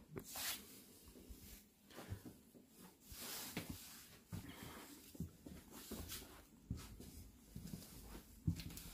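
Faint footsteps on the floor of a railroad passenger car, soft thumps about every second or two, with rustling handling noise and a couple of short breathy rushes.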